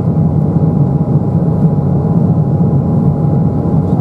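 Steady cabin noise of an Embraer 195 airliner in flight: the even rush of airflow and its two GE CF34 turbofan engines, heaviest in the low range, with a faint steady whine running through it.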